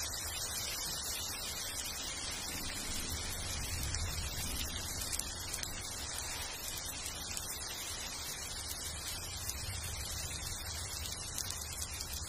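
Steady rain falling on vegetation, a dense patter of drops.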